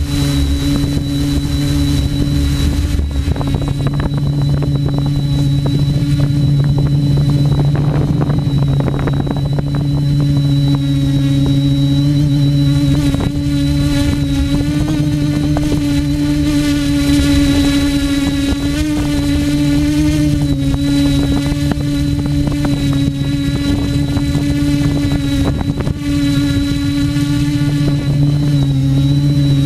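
Quadcopter drone's electric motors and propellers running, a loud steady buzz whose pitch wavers slightly as it manoeuvres.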